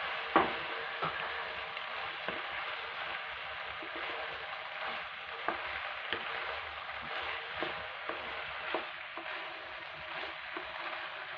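Macaroni and diced vegetables sizzling in a steel pot while a spatula stirs them, with a steady hiss and scattered knocks of the spatula against the pot, the sharpest about half a second in.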